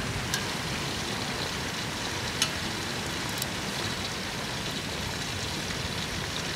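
Oil sizzling in a pot over a wood fire: a steady frying hiss with a few sharp pops.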